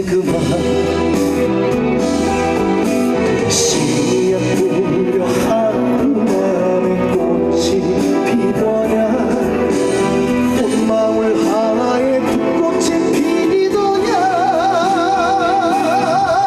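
Live trot song from a stage band over a PA, with guitar and singing. Near the end a long note with a wide vibrato is held.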